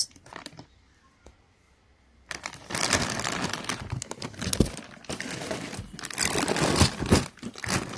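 Clear plastic bags of metal cabinet hinges crinkling as they are lifted and rummaged in a cardboard carton, starting about two seconds in, with a few sharper clicks.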